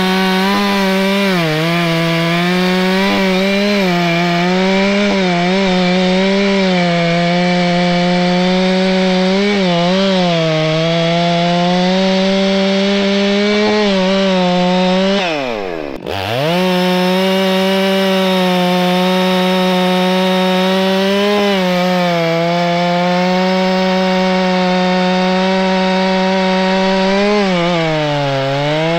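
Gas chainsaw with a long bar cutting through the base of a tree stump at high revs, the engine note sagging and recovering as the chain loads up in the wood. About halfway through, the revs drop sharply and climb back, and they sag again near the end.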